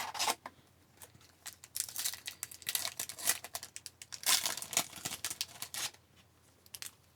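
Plastic wrapper of an Upper Deck hockey card pack being torn open and crinkled, in irregular bursts over about four seconds before it goes quiet.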